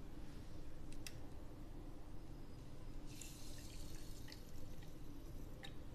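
Filter coffee decoction poured in a thin stream from a steel vessel into a steel tumbler, a faint splashing trickle that starts about three seconds in and lasts about a second and a half. A few light ticks come before and after it.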